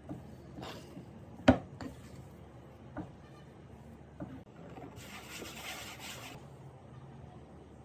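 Metal spoon knocking and scraping against a glass mixing bowl while working thick cocoa dough, a few sharp clicks with the loudest about a second and a half in. Near the end, a hand rubs flour across a countertop for a little over a second.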